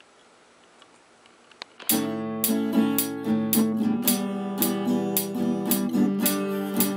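Faint room tone, then strummed acoustic guitar music that starts abruptly about two seconds in and carries on in a steady strumming rhythm.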